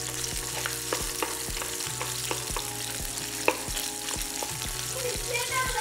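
Sausage frying in hot olive oil in a pan: a steady sizzle, thick with sharp pops and spits of fat, over a faint steady low hum.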